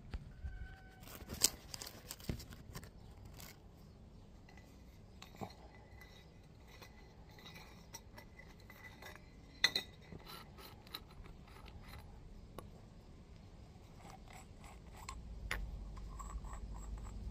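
Faint clinks and scrapes of black iron pipe fittings and hand tools being handled, with a few sharp knocks, the loudest about ten seconds in. A low rumble rises near the end.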